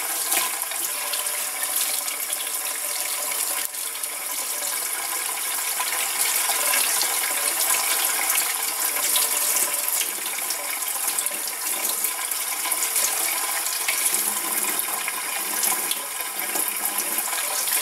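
Kitchen faucet running steadily into a stainless steel sink, the stream splashing over hands rinsing cooked chicken breasts.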